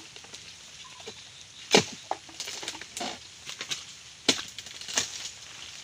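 Oil palm harvesting chisel (dodos) on a long pole being jabbed into the base of a palm frond to cut it away: four sharp chopping strikes about a second apart, the first the loudest.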